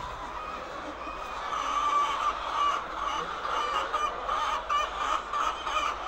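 A large flock of laying hens clucking and calling all at once, a dense overlapping chorus that grows louder about one and a half seconds in.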